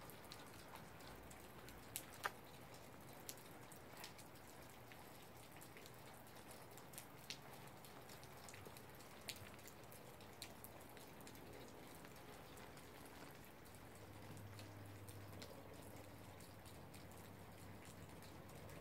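Near silence broken by scattered faint clicks and ticks, about a dozen, mostly in the first half. A faint low hum comes in during the last few seconds.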